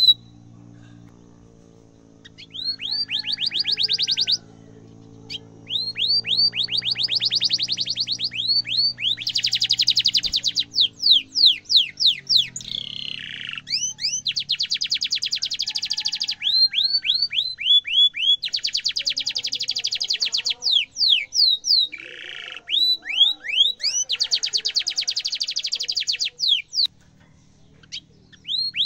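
Domestic canary in full song: runs of quick rising chirps that break into fast rolled trills, phrase after phrase with short pauses between. A faint low steady hum lies under the first half.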